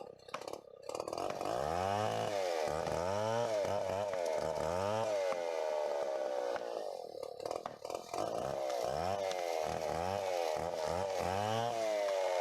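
Stihl chainsaw running at high revs, its engine note dipping and rising again about twice a second, with a brief drop in loudness about two-thirds of the way through.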